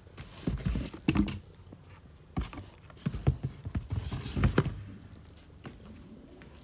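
Irregular thumps, knocks and rustling from cardboard boxes being handled, in two clusters: about a second in, and again between three and five seconds in.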